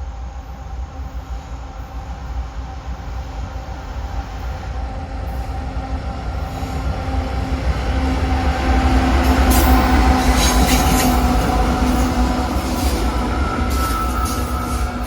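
CSX diesel freight train, led by a GE ES44AC locomotive, approaching and passing at close range. The engine rumble and rail noise grow to their loudest about ten seconds in. A thin wheel squeal rises near the end as the cars roll by.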